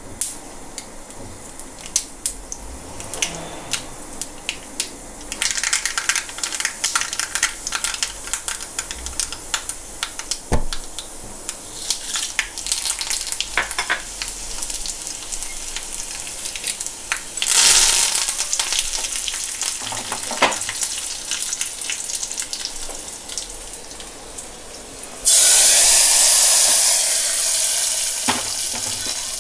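Mustard seeds popping and crackling in hot coconut oil in a kadai, with split dry red chillies frying, a brief louder sizzle partway through. Near the end a sudden loud hiss that slowly fades as the hot oil tempering is poured into the curry.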